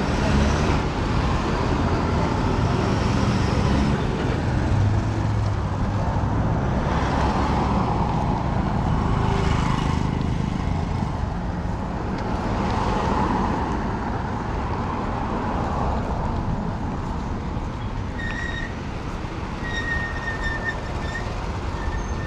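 Street traffic: vehicles running and passing in a steady rumble, swelling as a couple pass close, with a few short high tones near the end.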